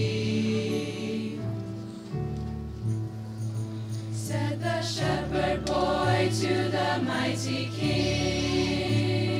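Mixed youth choir of girls' and cadets' voices singing a Christmas carol in harmony, with long held notes.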